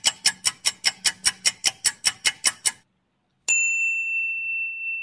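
Added sound effects: a quick, even run of about fifteen sharp ticks, about five a second, then a short silence and a bright ding that starts suddenly about three and a half seconds in and holds one steady high tone.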